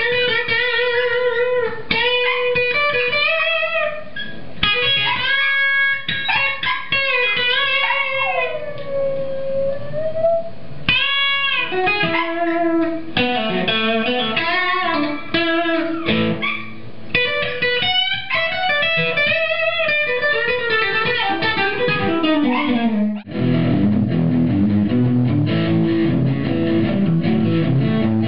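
Guitar playing a melodic lead line with notes bent and slid in pitch. About 23 seconds in it switches suddenly to fuller strummed chords.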